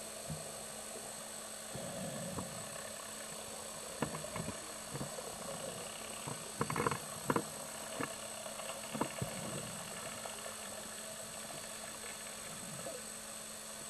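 Steady hum, with a run of short clicks and knocks in the middle, the loudest a pair of bursts about seven seconds in; the sound of a dive camera recording underwater.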